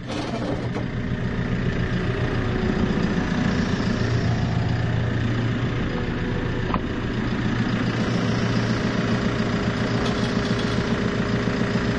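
JCB telehandler's diesel engine running steadily under load while its forks are tilted back to lift an old concrete water trough.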